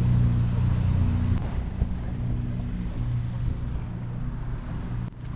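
Steady low hum of a motor-vehicle engine running close by, with street traffic noise; the hum drops back about a second and a half in.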